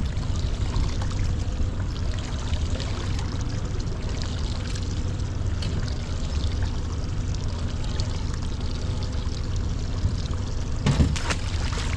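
Water sloshing and lapping against a boat hull over a steady low rumble, with a short cluster of clicks near the end.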